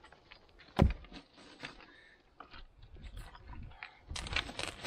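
Flat stones knocking and scraping against each other as the top course of a dry-stone wall is taken down by hand. A single sharp stone-on-stone knock comes about a second in, then scattered small clicks, and a quick run of knocks and scrapes near the end.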